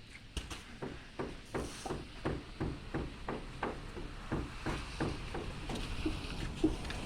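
Hammer blows struck in a steady rhythm, about three a second, a few sharper, ringing strikes near the end.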